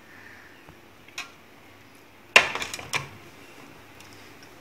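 A few sharp clinks of glassware while mango drink is poured from a glass jug into glass tumblers: a small click about a second in, the loudest clink just past halfway, and one more soon after.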